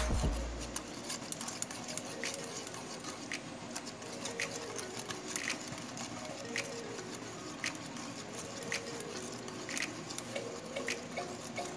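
Wire whisk stirring a thin yogurt (laban) mixture in a metal pot, its wires clicking against the side of the pot about once a second. Background music cuts off about a second in.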